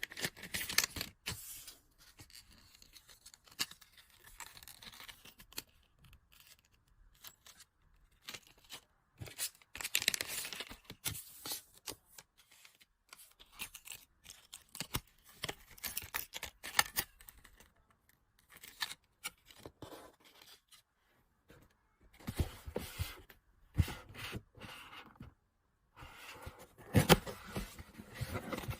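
Packaging being handled and opened by hand: plastic and paper wrapping rustling, tearing and scraping in irregular bursts, with a few sharp clicks, the loudest near the end.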